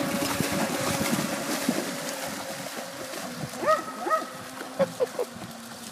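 A small radio-controlled boat's motor whines steadily and fades as it pulls away across the water. A dog splashes through the shallows after it. Over the second half come a few short, high, excited yelps from the dog.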